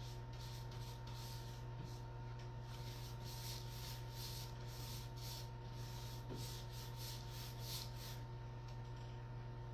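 Paint roller rubbing across a wall in repeated soft, hissy strokes, about one or two a second, that stop near the end, over a steady low hum.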